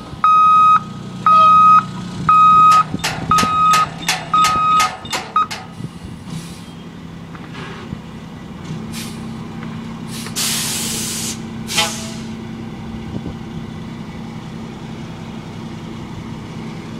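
Dump truck's backup alarm beeping about once a second over its idling diesel engine, stopping after about five seconds. About ten seconds in, the air brakes release a loud hiss for about a second.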